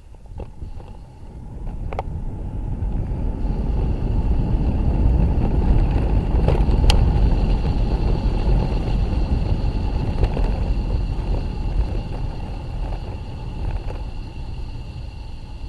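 Wind buffeting the handlebar-mounted camera's microphone and tyre rumble from a moving bicycle, building as the bike picks up speed and easing off slowly after the middle. A few sharp clicks sound through it.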